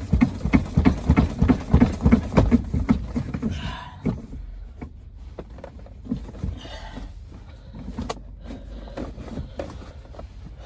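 Rapid dull thumps and knocks for the first few seconds as a Nissan G35's rear seat is yanked and worked loose, then quieter rustling with scattered clicks.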